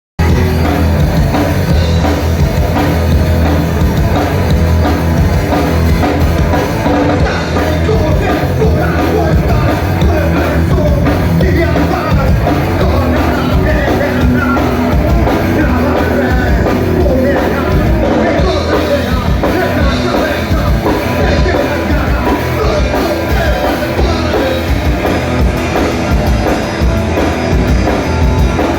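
Rock band playing loudly at a sound check: drum kit driving under the instruments, with singing.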